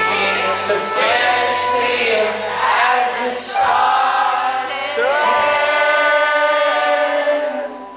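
Live rock band playing with a male lead singer on a handheld microphone. From about the middle, long notes are held, and the sound fades away near the end.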